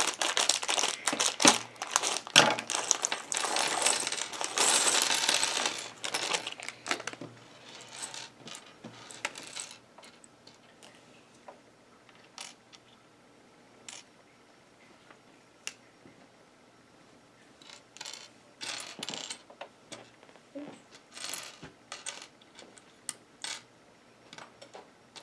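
A plastic parts bag crinkling as it is cut and handled for the first six or seven seconds, then scattered light clicks and clatters of small plastic building bricks being picked up and set down on a tabletop.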